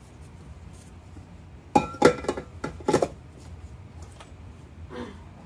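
Stainless steel mixing bowl clanking and clicking against a stand mixer's base as it is set and locked into place under the wire whisk: a cluster of sharp metallic knocks about two seconds in, then a few more. The mixer's motor is not running.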